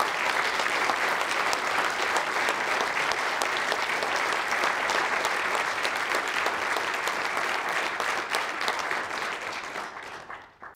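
Audience applauding steadily, a dense patter of many hands clapping, fading out just before the end.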